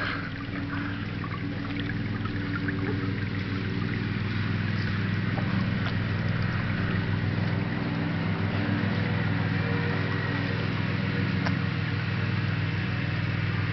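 A steady low mechanical hum, with water trickling and gurgling.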